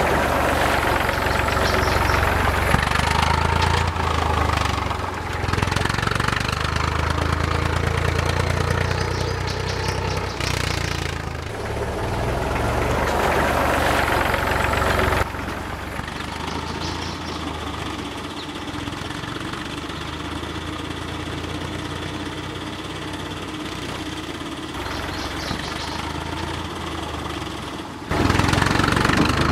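Tractor engine sound running steadily. It drops suddenly to a lower level about halfway through and jumps back up near the end.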